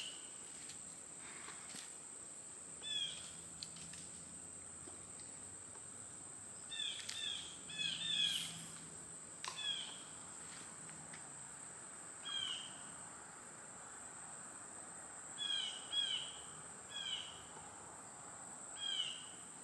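Outdoor pond-side ambience: a steady high-pitched insect drone from crickets or cicadas, with a bird giving short, downslurred call notes, singly or in quick pairs, every few seconds.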